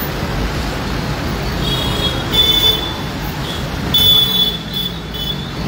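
Road traffic on a wet street, with a water tanker truck running past close by. Short high-pitched tones stand out about two and a half seconds in and again around four seconds in.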